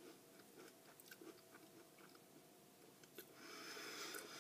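Faint chewing of a soft, sticky s'more of graham cracker, melted chocolate and toasted marshmallow, with small wet mouth clicks. About three seconds in a soft rushing sound rises for about a second.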